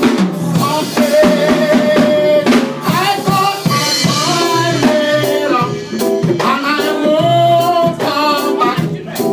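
Live reggae gospel music: sung lead and backing vocals over a drum kit, played through a PA.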